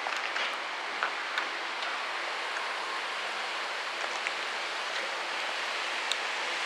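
Heavy rain falling steadily: an even hiss, with a few sharper ticks of single drops.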